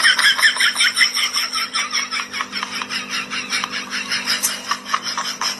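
Bird calls: rapid, repeated high chirps, about six a second, over a steady low hum.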